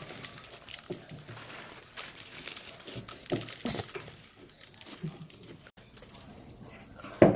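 Beaded slime being kneaded and squished by hand, a run of irregular sticky crackles and squelches, with one sharp loud snap near the end.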